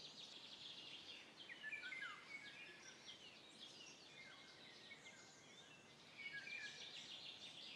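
Faint birdsong ambience: many short chirps and small gliding whistles from small birds, a little louder around two seconds in and again near the end.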